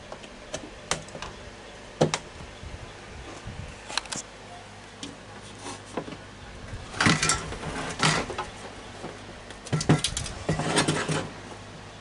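Scattered clicks and light knocks, then short bursts of rustling and scraping about seven seconds in and again around ten to eleven seconds: a power cord's plug being pushed into an outlet, and the cord and an electric wall clock being handled.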